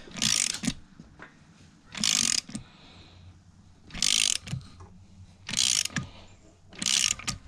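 Ratchet wrench clicking in five short bursts, one every second and a half to two seconds, as it turns the forcing screw of a crank puller. The puller is slowly drawing the harmonic balancer off a 3800 V6 crankshaft.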